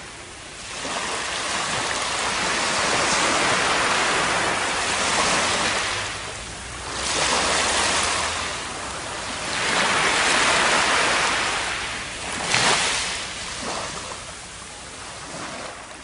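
Waves washing up on a sandy beach: a rushing surf that swells and falls back several times, with one brief sharper splash about three-quarters of the way through.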